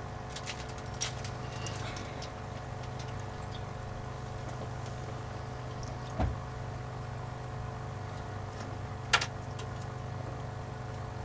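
Steady low machine hum. A few faint clicks come early on, a dull knock about six seconds in and a sharp click about nine seconds in.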